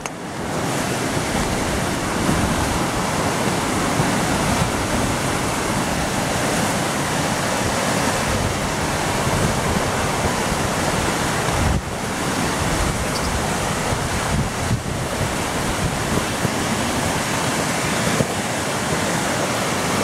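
Steady rush of a fast river running high with snowmelt, churning white over rocks.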